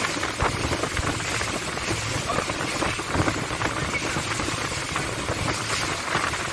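Small speedboat under way: its engine running steadily under a constant rush of water and wind noise.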